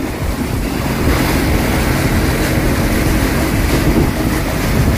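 Motorboat running at speed with a steady low engine hum, water rushing past and wind buffeting the microphone.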